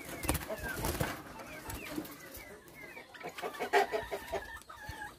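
Poultry in backyard pens clucking and calling, with many short high chirps throughout and a louder burst of calls about three and a half seconds in.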